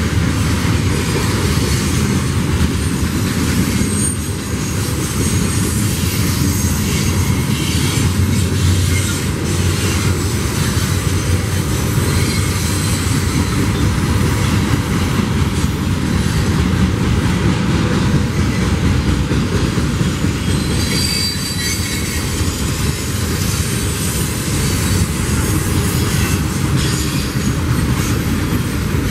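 Freight train cars rolling past, a steady loud rumble with wheels clattering on the rails and a few brief, thin, high wheel squeals.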